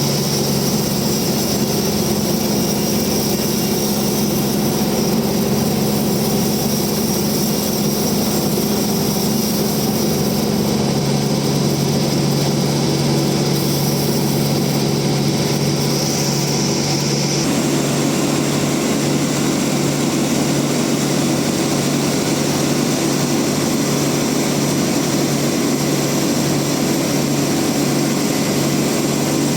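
Bandsaw sawmill running steadily as it cuts through a large rain tree log. A high whine in the sound drops out about two-thirds of the way through.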